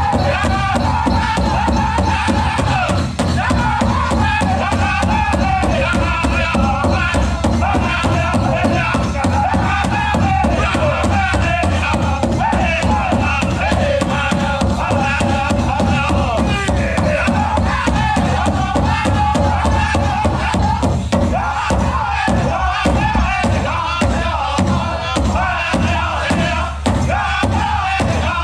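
Powwow drum group singing a chicken dance song in chorus while beating a big drum in a steady rhythm; about two-thirds of the way through, the drumbeats stand out more sharply.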